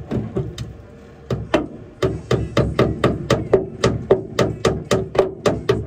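Hammering: a few scattered blows, then from about two seconds in a fast, steady run of about five strikes a second, each with a short ring.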